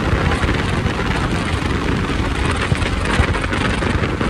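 A Honda SP125 motorcycle on the move: a steady rush of wind buffeting the microphone over engine and road noise, with a couple of brief knocks about two-thirds of the way through.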